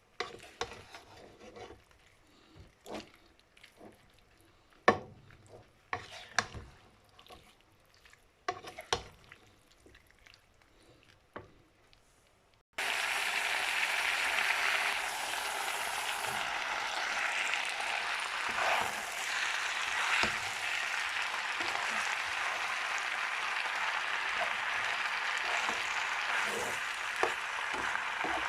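Spaghetti being stir-fried in a wok: utensil clicks and knocks against the pan at first, then about halfway through a steady frying sizzle starts suddenly and keeps going.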